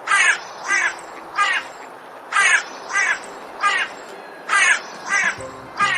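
A duck quacking: nine short, raspy quacks in three groups of three.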